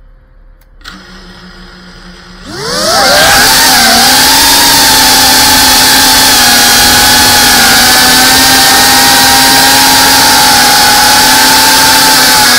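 GEPRC Cinelog 35 FPV drone's brushless motors and propellers, heard from the camera mounted on the drone. The motors start at a low idle about a second in. At about two and a half seconds they spin up with a rising whine as it takes off, then hold a loud, steady multi-tone whine in flight.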